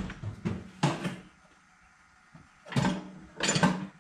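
Metal hand tools clattering and knocking as someone rummages for a drift or punch: a few knocks at the start and about a second in, then a louder cluster near the end.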